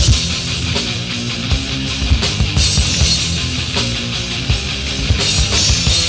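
Hardcore thrash band playing an instrumental passage: drum kit with crashing cymbals, distorted guitar and bass, from a cassette recording.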